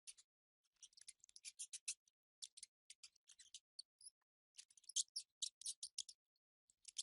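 Mice giving rapid runs of short, high-pitched squeaks and clicks in bursts, with short pauses between them, faint overall.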